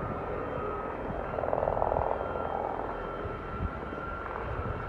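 Steady jet engine noise from Red Arrows Hawk jets, with a brief louder buzzing swell about a second and a half in.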